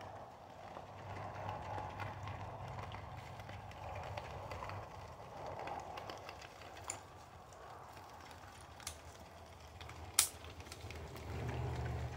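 Feral hogs feeding on scattered corn: faint chewing and rooting, with a few sharp clicks, the loudest about ten seconds in. Under it runs a low steady hum that grows louder near the end.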